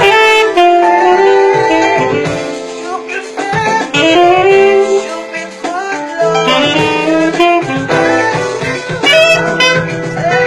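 Saxophone playing a melody close up, held notes linked by slurs and upward slides, with a quieter low accompaniment underneath in the second half.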